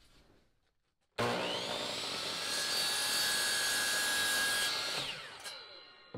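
DeWalt 10-inch compound miter saw switched on, whining up to speed and running steadily while it crosscuts a thin strip of wood. The trigger is released about five seconds in, and the blade winds down with a falling whine.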